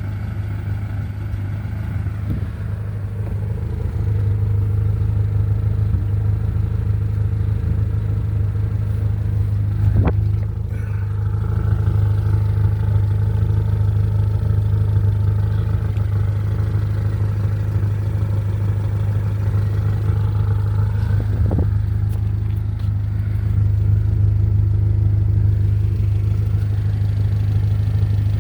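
A 1990–91 Honda Civic hatchback's engine idling steadily through an HKS aftermarket exhaust, giving a constant low drone. It is interrupted by two brief clicks, once about a third of the way in and again about three quarters through.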